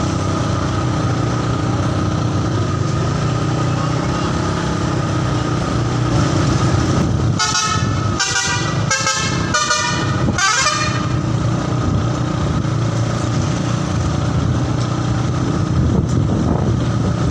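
Bus telolet horn sounding a quick run of about five short multi-tone blasts about seven seconds in, over a steady engine rumble.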